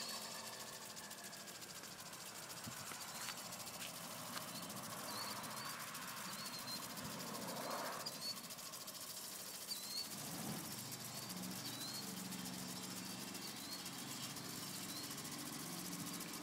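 Small engine of a motorized bicycle fading away into the distance, then a faint, steady engine hum building again in the second half. Short bird chirps repeat throughout.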